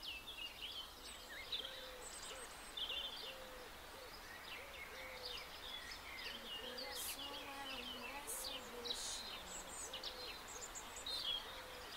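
Outdoor bird chorus: many birds chirping and calling at once, with a low hooting call repeated steadily, about two or three notes a second.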